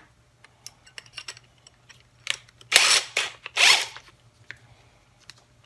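Clicks and rattles of a drill bit being changed in the keyless chuck attachment of a cordless impact wrench, with two short rasping bursts a little before halfway and again just after it.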